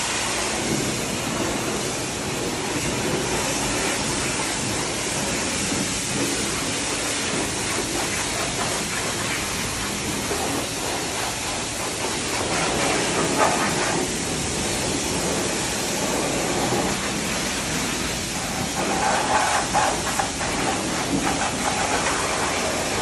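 Pressure-washer wand spraying water onto a muddy dirt bike: a steady hiss of spray, growing louder for a moment about midway and again for a couple of seconds toward the end as the jet strikes the bike.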